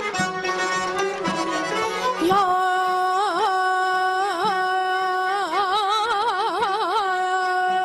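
Music: an instrumental opening gives way, a little over two seconds in, to a solo voice singing long held notes broken by quick trilled ornaments.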